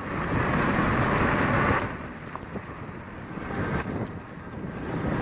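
Wind buffeting the microphone of a handlebar-mounted camera on a bicycle coasting downhill, mixed with tyre and road noise. The rush is strongest for the first couple of seconds, then eases, with a few light clicks and rattles.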